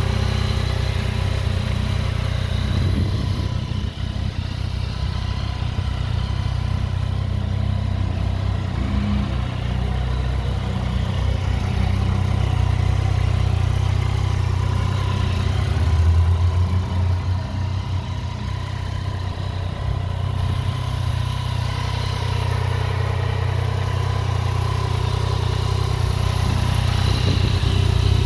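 2018 Yamaha MT-09's 847 cc inline three-cylinder engine idling steadily.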